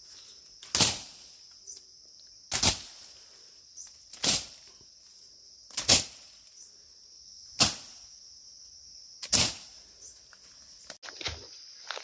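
Steady high-pitched drone of jungle insects, crossed by six short whooshing swishes that come evenly about every second and three quarters.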